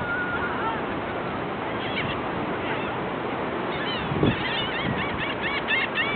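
A flock of gulls calling: scattered short, arching cries that become a quick run of repeated calls in the last two seconds, over a steady background hiss. A dull thump about four seconds in.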